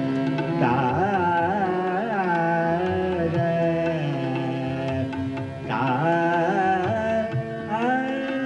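A male voice sings a Marathi natyageet (stage song) in classical style, in flowing, ornamented phrases with a brief break a little past halfway and a rising glide near the end. A reed organ and a tanpura drone accompany him with steady held notes.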